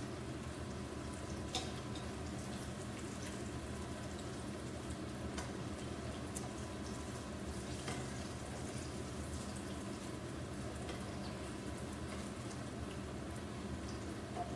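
Flour-battered sweet potato slices frying in a pan of hot oil: a steady sizzle with a few scattered sharp pops and clicks.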